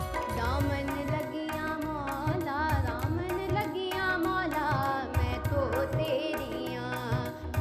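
A girl's voice singing a South Asian-style melody with wavering, ornamented lines over an instrumental backing of steady sustained tones and regular hand-drum strokes.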